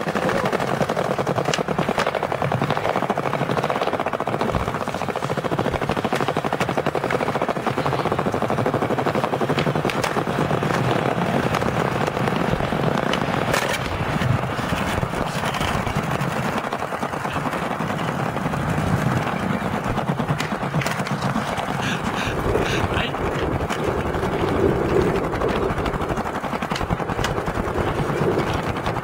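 Skateboard wheels rolling over plaza paving tiles: a continuous rumble with a rapid clatter over the tile joints, broken now and then by the snap of a tail pop and the crack of a board landing during a line of flatground tricks.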